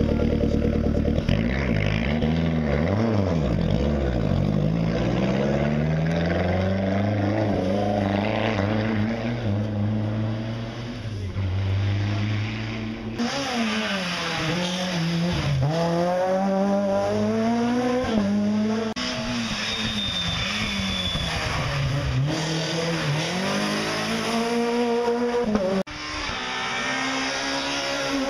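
Rally car engines: first a Lancia Delta Integrale's turbocharged four-cylinder held at revs and pulling away from the start line. Then, across several short cuts, rally cars accelerating hard through hairpin bends, the engine note climbing and dropping with each gear change.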